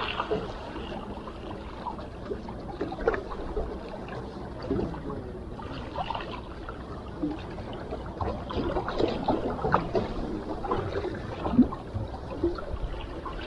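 Calm sea water lapping at the shore, with small irregular splashes and gurgles.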